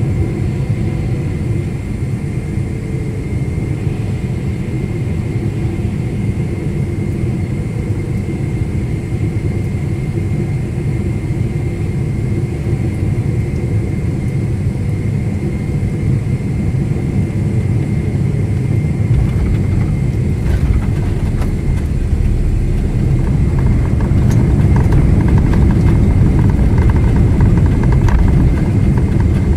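Cabin noise of a jet airliner landing: a steady rumble of engines and airflow. About two-thirds of the way through there are a few knocks as the wheels touch down, and the rumble then grows louder as the plane rolls out along the runway.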